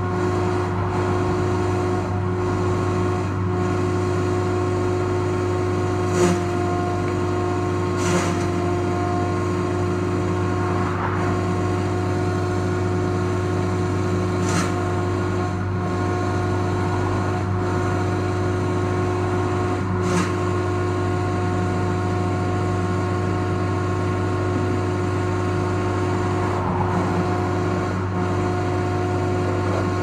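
Wood chipper's engine running steadily at a constant speed, a level droning hum with no change in load, and a few brief knocks over it.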